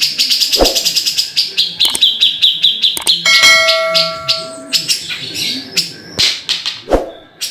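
Cucak jenggot (grey-cheeked bulbul) calling in fast runs of sharp, repeated chirps, about eight a second, dropping to a slightly lower run midway. A steady whistle-like tone lasts over a second about three seconds in, and a few sharp clicks come through.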